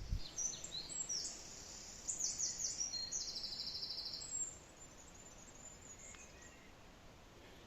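A small songbird singing a phrase of high chirps that runs into a fast, even trill, ending about four and a half seconds in. After it, only faint forest background with a few weak calls.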